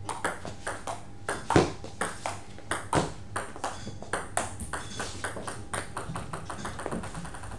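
Table tennis rally: the celluloid ball clicks sharply off the paddles and the table, two to three hits a second. Near the end a quicker, quickening run of light clicks follows as the ball bounces to rest after the point.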